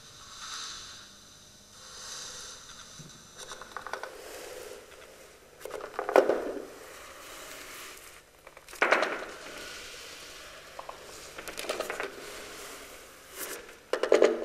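Paper being handled: crinkling and rustling in irregular bursts with small crackles, the loudest about six, nine and fourteen seconds in.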